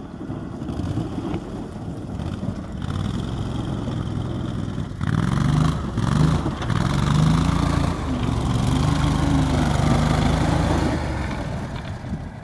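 Engine of a Max Buffalo 6x6 amphibious ATV running as it is driven over dirt and gravel, its pitch rising and falling repeatedly with the throttle. It grows louder about five seconds in and fades near the end.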